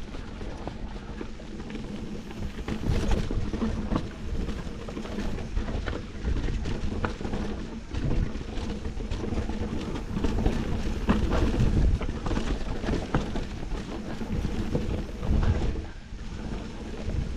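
Mountain bike rolling fast down a forest dirt trail: knobby tyres rumbling over dirt and roots, with frequent short rattles and knocks from the bike, and wind buffeting the action-camera microphone.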